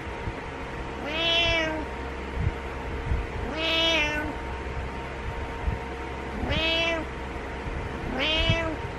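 Domestic cat meowing four times, each a drawn-out call rising and falling in pitch, spaced about two to three seconds apart.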